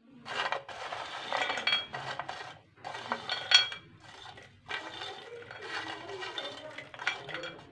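Crisp fried pasta spirals rattling and scraping in a stainless steel bowl as they are tossed by hand in spice powder, in irregular bursts with a few light metallic clinks.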